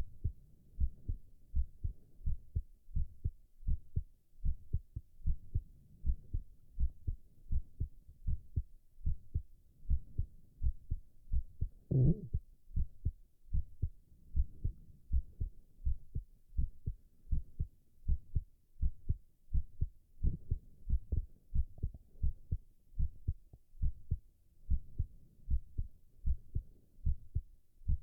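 A man's heartbeat, a steady run of soft low lub-dub thumps. About twelve seconds in there is one short gurgle.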